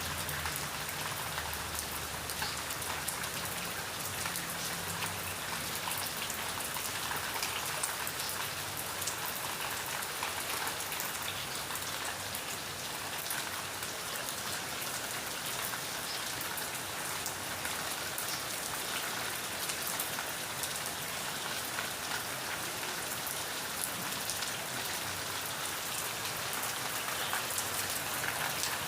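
Steady rain falling: an even hiss filled with many small drop ticks.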